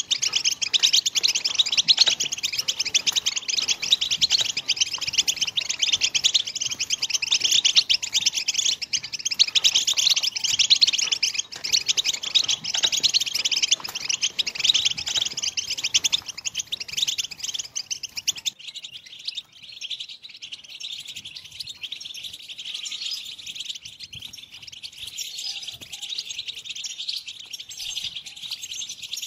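European goldfinch song: a dense, rapid twittering of the kind keepers call 'bitbita'. About two-thirds of the way through it changes to a quieter, thinner twitter.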